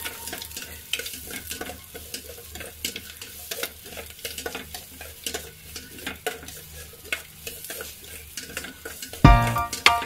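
Chopped onion sautéing in oil in a stainless steel pot, sizzling softly while a spatula stirs it, scraping and tapping against the pot. Music cuts in about nine seconds in.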